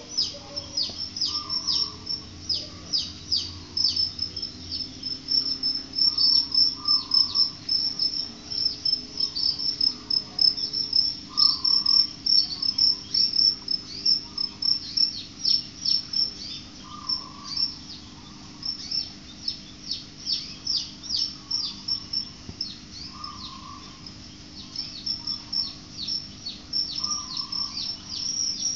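Outdoor chorus of chirping insects: rapid, high chirps repeating densely throughout, some sliding down in pitch, with a fainter lower call recurring every few seconds.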